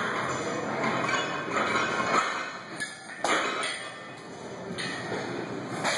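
Metal clinks and knocks of a loaded barbell and its iron plates in a squat rack, over a steady hum of background noise, the loudest knocks about two and three seconds in.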